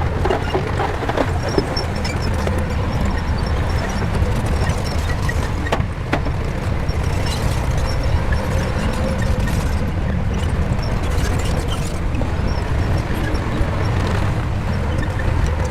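Shantui bulldozer's diesel engine running steadily, with a couple of sharp clanks about six seconds in.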